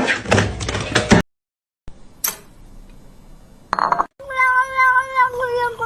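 A cat giving one long, drawn-out meow that starts about four seconds in and slowly falls in pitch. Before it come a short clattering noise at the start and a brief click.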